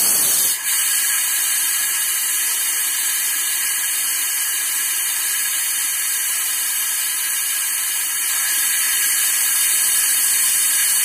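GEKO compressed-air venturi brake bleeder hissing steadily as shop air at about 100 psi rushes through it, its trigger pressed lightly so that it pulls a vacuum and draws brake fluid up the tube. The hiss dips briefly about half a second in and grows slightly louder near the end.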